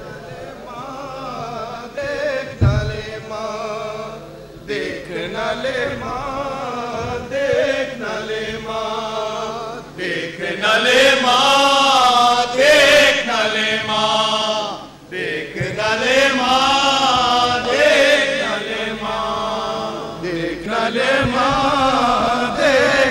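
Voices chanting a mournful Shia Muharram lament in long, wavering held notes, louder from about ten seconds in.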